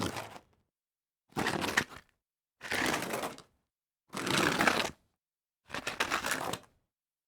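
A series of foley slides on dirt: four short gritty scrapes, each under a second, about one every one and a half seconds, with dead silence between them.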